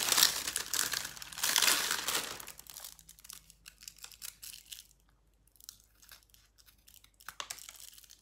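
Plastic shrink-wrap on a pack of milk cartons crinkling and tearing as cartons are pulled out. Then, from about three seconds in, quieter scattered clicks and snips of scissors cutting open a paper milk carton.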